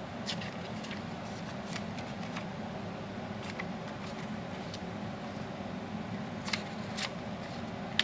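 Cardstock photo mats and vellum overlays in a paper scrapbook album being handled: light rustles and about a dozen short, sharp clicks and taps of paper and fingernails on card, scattered irregularly over a steady low background hum.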